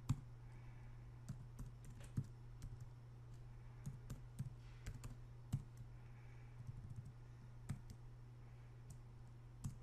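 Faint typing on a computer keyboard: scattered single keystrokes in short irregular runs, over a steady low hum.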